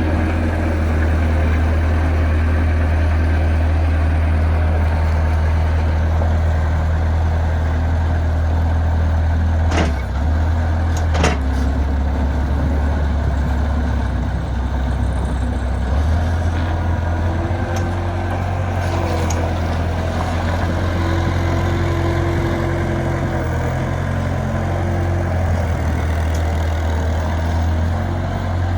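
Bobcat skid steer engine running steadily, its pitch shifting a little about ten seconds in and again a few seconds later. A couple of sharp metallic clanks come around ten and eleven seconds in.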